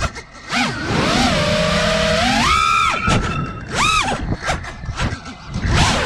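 FPV quadcopter's brushless motors whining, the pitch swooping up and down sharply again and again as the throttle is punched and chopped, with brief dips where the throttle is cut.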